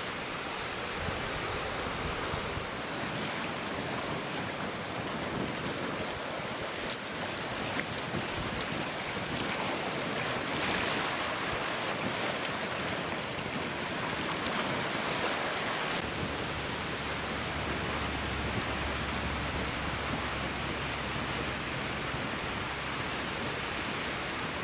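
Ocean surf on a rocky shore: a steady rush of breaking and churning waves, swelling a little louder around ten seconds in. The sound changes abruptly about sixteen seconds in.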